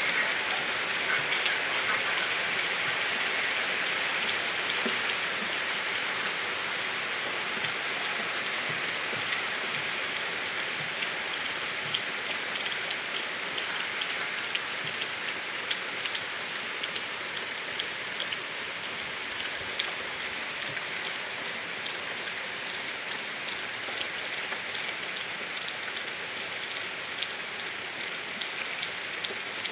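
Heavy rain falling steadily, with individual drops ticking sharply on a surface, the ticks coming more often in the second half.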